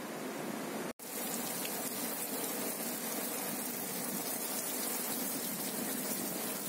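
Heavy rain pouring down on rooftops: a steady hiss that breaks off for an instant about a second in.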